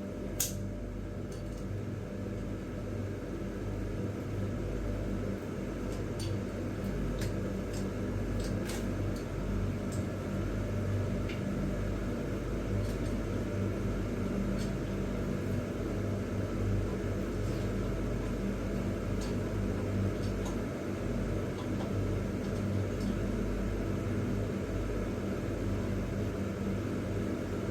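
Scattered sharp metal clicks of a wrench working the floor bolts at the base of a toilet, over a steady low hum.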